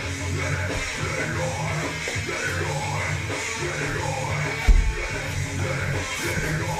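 Rock music with electric guitar, with one short low thump about two-thirds of the way through.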